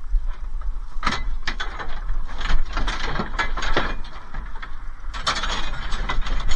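Irregular knocks and clatters of scrap and gear being shifted about in the back of a van, over a steady low rumble.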